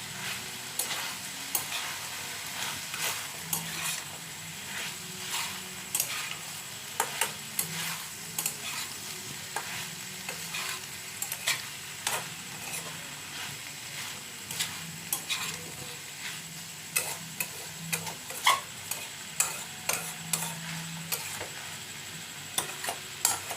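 Chicken, onion and capsicum frying in a pan with a steady sizzle, while a spatula stirs the mixture, knocking and scraping against the pan in irregular sharp clicks.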